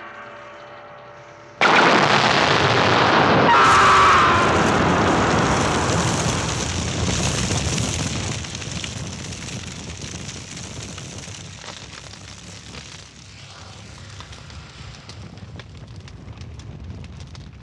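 A ringing tone fades out, then about a second and a half in a sudden loud explosion bursts and dies away slowly into a low noise with fine crackling, as of fire, on a film soundtrack.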